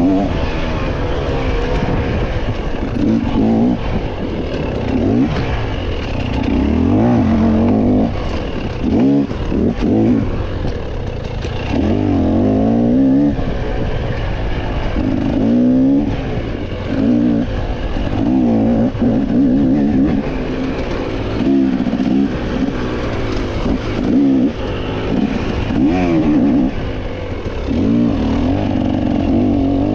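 Off-road motorcycle engine revving hard and easing off again and again through the whole stretch, its pitch climbing and falling every second or two as the rider works the throttle and gears over rough trail.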